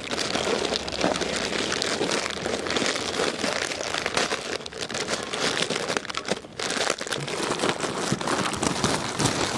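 Plastic wrappers of Maggi instant noodle packets crinkling continuously as they are torn open and the noodle cakes are pulled out by hand.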